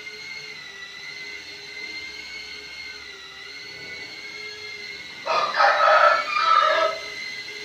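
Cinewhoop drone on Gemfan D51 five-blade ducted propellers giving a steady high whine. About five seconds in, a rooster crows loudly over it for nearly two seconds.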